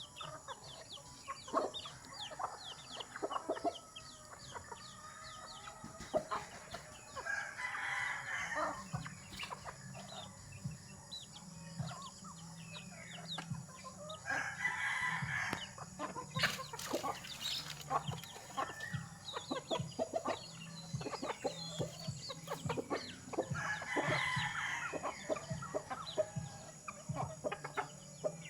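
A flock of chickens calling while they feed: many short, rapid clucks and cheeps throughout, with three longer, louder calls about 8, 15 and 24 seconds in.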